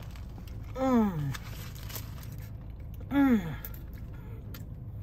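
A woman's two short moans of enjoyment with her mouth full of burger, each sliding downward in pitch, about a second in and again about three seconds in.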